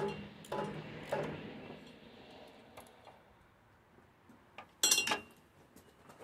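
Metal hand tools clinking as a socket and extension are handled: three clanks in the first second or so, then a louder, brief metallic clatter about five seconds in.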